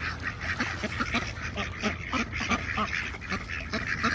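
A crowd of ducks quacking continuously, many short calls overlapping.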